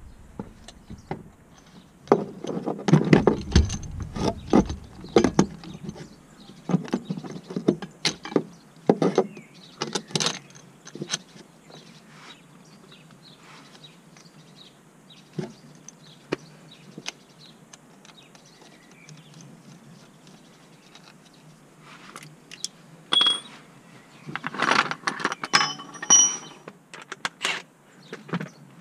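Irregular metallic clinks and clatter of bolts and hand tools on the BMW's propshaft flex disc and gearbox output flange. They come in two busy spells with a quieter stretch between, and some strikes ring briefly.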